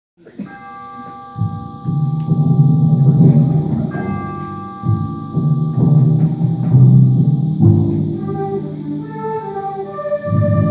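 School concert band playing: after a ringing opening tone, full wind and brass chords come in about a second and a half in and swell and fade, and from about eight seconds a melody of moving notes sounds above held chords.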